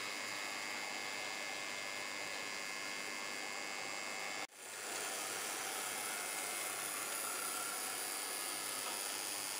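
Steady hiss with a faint high steady whine, broken by a brief dropout about four and a half seconds in.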